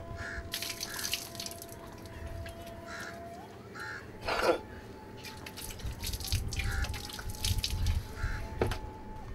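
Water splashing and dripping onto a wet floor as someone washes, in irregular spells, with one louder splash about halfway through. Crows caw now and then.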